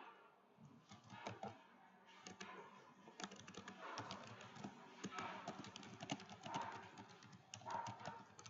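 Faint typing on a computer keyboard: a fast, irregular run of key clicks, sparse at first and growing dense from about three seconds in.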